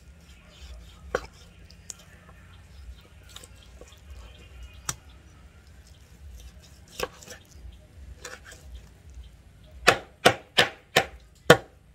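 Kitchen knife chopping raw chicken on a wooden cutting board. A few scattered light knocks come first, then a quick run of about five hard chops near the end as the thigh and leg are cut apart.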